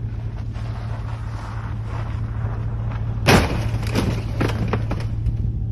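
A vehicle's engine running steadily on an icy road, then a little over three seconds in a single loud thud of a collision with a car, followed by a few lighter knocks and clatter.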